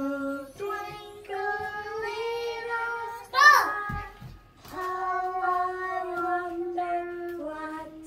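A three-year-old girl singing along to a calm children's English song in long, held notes, with a short high vocal swoop about three and a half seconds in.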